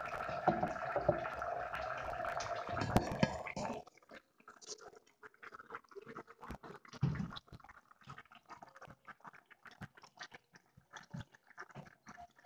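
Covered pot of chicken simmering on a gas stove: a steady hum with crackling that cuts off suddenly about four seconds in, then scattered soft pops and ticks.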